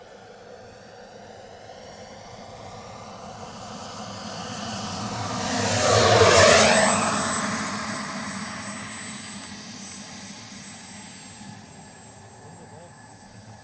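Turbine of a 1:3 scale Messerschmitt P1110 model jet (Frank VRaptor drive) passing close as it comes in to land. A high whine and exhaust rush swell to a peak about six seconds in, the whine drops slightly in pitch as the jet goes by, and the sound then fades as it rolls out on the grass.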